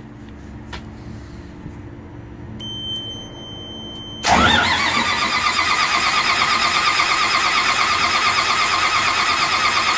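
A steady high beep sounds for about a second and a half. Then, about four seconds in, the starter cranks the John Deere 6068 inline-six diesel: a steady whine with a fast, even pulse from the compression strokes, and the engine does not fire. It is being cranked to prime the fuel system after an injector pump replacement, with two front injectors cracked loose.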